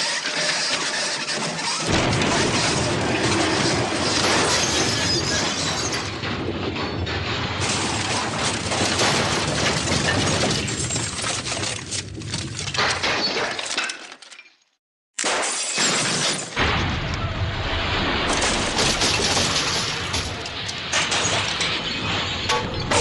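Edited crash sound effects: a continuous din of smashing, breaking and shattering glass. It cuts out almost completely for about a second near two-thirds of the way through, then starts again.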